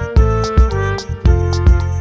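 Instrumental background music with a steady beat, about two beats a second, under sustained melody notes.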